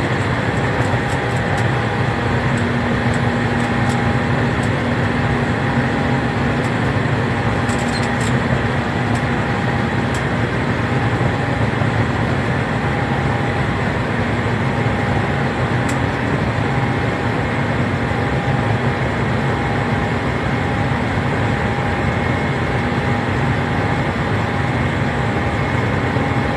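Steady roar of an airliner's jet engines and rushing air heard inside the passenger cabin during the climb after takeoff, with a faint steady whine.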